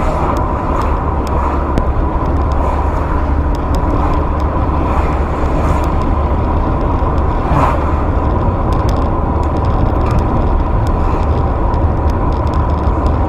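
Steady running noise of a moving vehicle heard from inside the cab through a dash camera: a strong low rumble with a thin steady whine and light scattered ticks and rattles.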